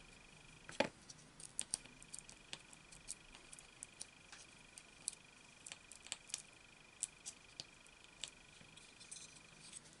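Faint, irregular clicks and taps from fingers handling the opened metal frame and small parts of an iPod Nano. The sharpest click comes about a second in.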